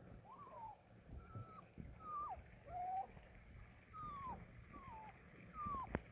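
Dalmatian puppy whining: about seven short, high whimpers that each slide down in pitch, roughly one a second. A sharp click comes near the end.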